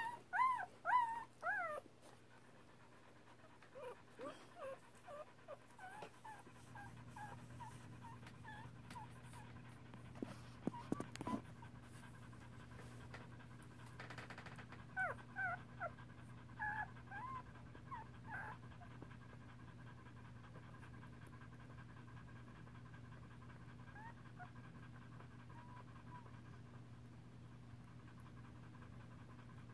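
Newborn standard poodle puppies squeaking and whimpering in short, high, wavering cries, in three bouts, loudest at the start. Under them the mother, in labour, pants steadily.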